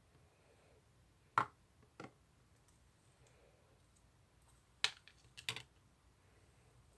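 Sticky cream slime worked by hand, giving a few sharp clicking pops: two about a second and a half and two seconds in, then a quick cluster near five seconds.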